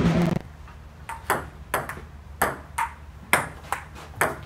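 A loud steady buzzing tone cuts off abruptly about half a second in. Then a table tennis rally follows: the ball clicks sharply off the paddles and the outdoor table at an even pace, about two hits a second.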